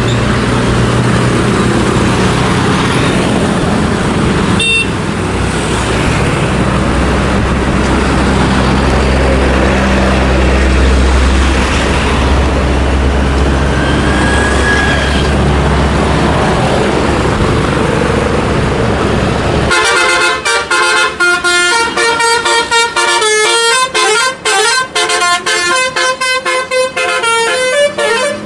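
Tour bus engine running with a steady low hum, then from about 20 seconds in a Basuri telolet horn plays its tune: several bright horn tones switching rapidly in a repeating melody that runs to the end.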